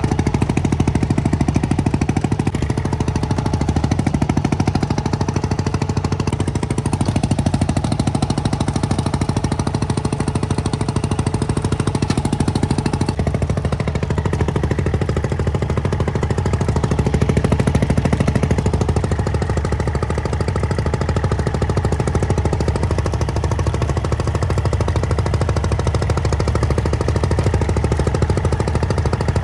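Fishing boat's engine running steadily under load, with a fast, even knocking pulse and a deep rumble.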